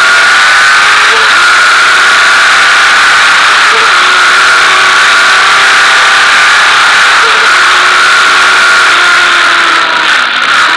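Sport motorcycle engine held high in the revs at full throttle, with heavy wind rush over the onboard camera. Near the end the revs drop as the throttle closes.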